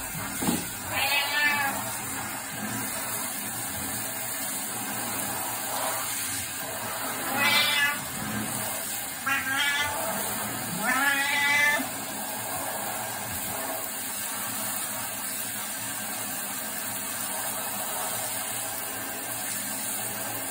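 A domestic cat meowing four times in drawn-out calls while it is being showered, over the steady hiss of water spraying from a handheld shower head.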